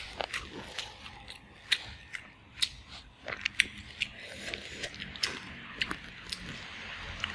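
Close-up eating sounds: irregular crisp clicks and crackles of chewing and of fingers picking through food on a plate, a few each second.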